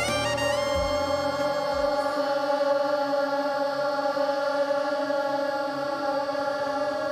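A large crowd of children chanting a prayer in unison on one long held note, with low backing-music notes that stop about two seconds in.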